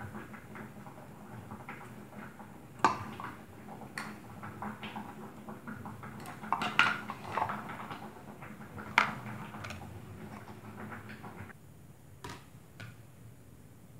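Kitchen utensils clinking, knocking and scraping: diced carrot scraped out of a plastic food chopper onto a ceramic plate, then a knife and plastic cutting board handled. Sharp clacks stand out about three, seven and nine seconds in.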